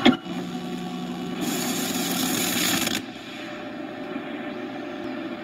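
VCR starting to play a videotape: a sharp click, then steady tape hiss with a low hum. The hiss turns brighter and louder for a while and drops back down about three seconds in.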